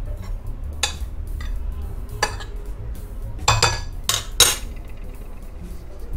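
Hand potato masher pressing boiled potatoes in a glass bowl, knocking and clinking against the glass several times at an irregular pace. The loudest clinks come a little past the middle.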